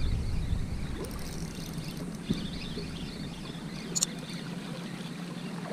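Small waves washing against shoreline boulders, a steady soft noise, with a faint click about four seconds in.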